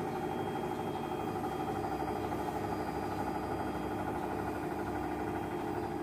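Aqua front-loading inverter washing machine running: a steady motor hum with a few even tones.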